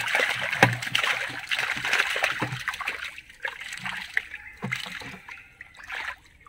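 Water and small tilapia pouring out of a tipped plastic drum into a shallow muddy pond, splashing and sloshing. The pour dies down after about three seconds, leaving a few smaller splashes.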